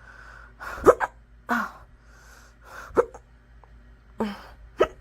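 A person hiccuping hard and repeatedly: several short, sharp hiccups a second or two apart.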